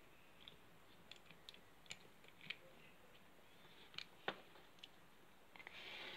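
Faint, scattered clicks and taps of small plastic Littlest Pet Shop toy figures being handled and set down on a wooden tabletop, the loudest a couple of knocks about four seconds in.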